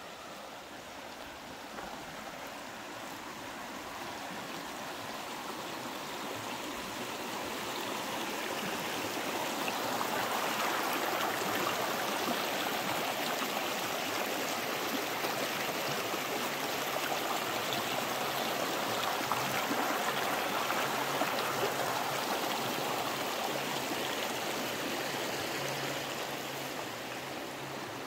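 A mountain stream rushing over rocks: a steady hiss of water that swells over the first ten seconds or so, holds, and fades near the end.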